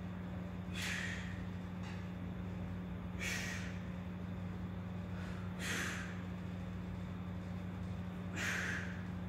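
A man's hard breaths while straining through pull-ups: four forceful breaths, about two and a half seconds apart, one with each rep's effort. A steady low hum runs underneath.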